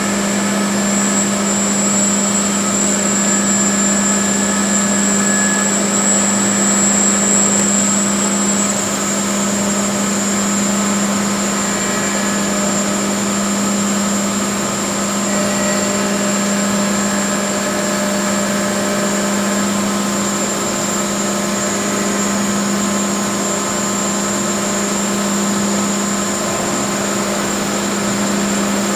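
Mollart four-spindle gundrilling machine running steadily, its spindles drilling small holes in a pellet die at about 12,000 RPM with high-pressure coolant: a constant hum with a steady high whine over it.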